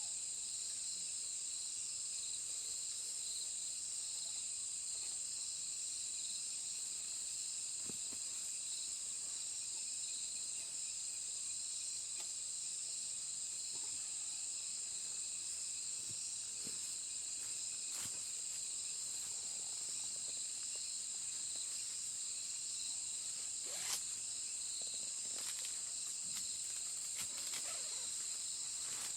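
Steady, high-pitched chorus of insects such as crickets, droning without a break. A few faint clicks and knocks sound over it, the clearest one late on.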